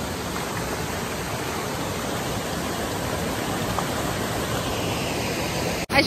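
Steady rush of a waterfall pouring over rocks into a pool, breaking off abruptly near the end.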